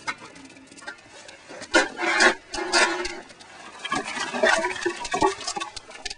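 Wood fire crackling and popping in the firebox of a wood-burning kiln, with pine burning. The cracks are irregular, with louder clusters about two seconds in and again near five seconds.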